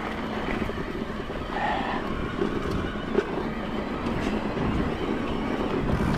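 Steady rushing riding noise of a Focus Thron2 6.8 electric mountain bike climbing a dirt trail under motor assist, with a couple of sharp clicks from the bike about three and four seconds in.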